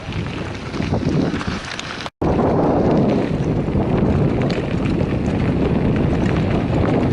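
Wind rushing over the microphone and bicycle tyres rolling on a gravel rail trail, a dense steady rush with small crackles. It cuts out for an instant about two seconds in and comes back louder.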